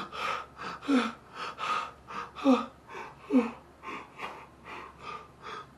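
A young man sobbing: ragged, gasping breaths about every half second, broken by a few short rising cries.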